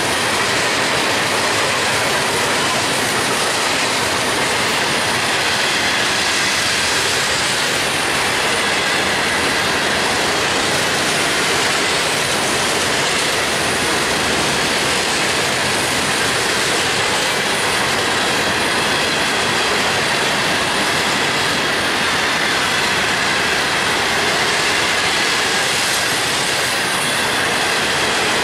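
Freight cars of a long mixed freight train rolling past close by: a steady rush and rumble of steel wheels on rail, with a thin high wheel squeal over it.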